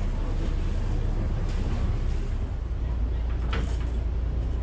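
Wooden gulet tour boat's diesel engine running with a low, steady rumble as the boat manoeuvres in the harbour, with wind buffeting the microphone. A single sharp click sounds about three and a half seconds in.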